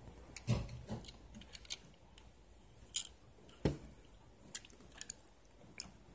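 Faint handling noise: fingers rubbing and clicking on a small die-cast toy car as it is turned in the hand, with two soft knocks about half a second in and again near the middle.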